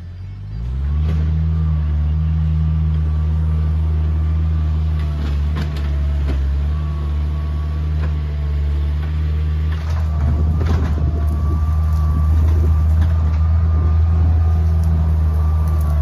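Bobcat 743 skid steer's engine throttling up about a second in and then running steadily at high revs. From about ten seconds in, crackling and clattering sound over the engine.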